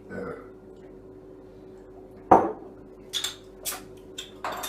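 Clinks and one sharp knock of a drinking vessel set down on a table about halfway through, followed by a few lighter clicks and short hissy rustles. A faint steady hum runs underneath.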